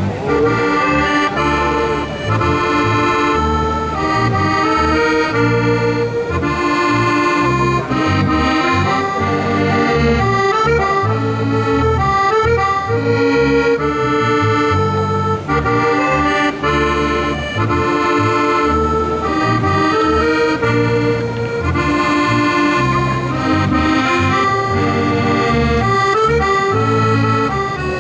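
Piano accordion playing a tune, a melody over rhythmic bass notes and chords.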